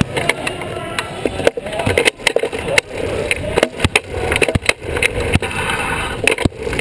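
Sports wheelchair rolling across a hardwood basketball court, its wheels rumbling on the floor, with frequent sharp knocks and rattles of the chair and short squeaks of tyres on the wood.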